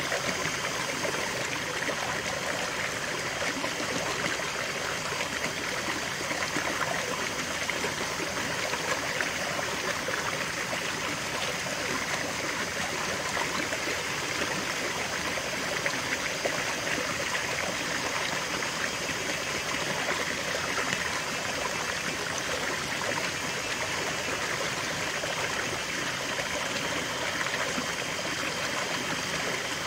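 Small rocky stream: water spilling over a low cascade between boulders into a shallow pool. It makes a steady, even rush of splashing and trickling with no pauses.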